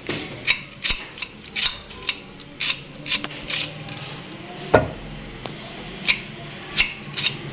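Kitchen knife slicing a head of cabbage into thin shreds on a cutting board. About a dozen crisp cuts come at an uneven pace, with a heavier knock about halfway through.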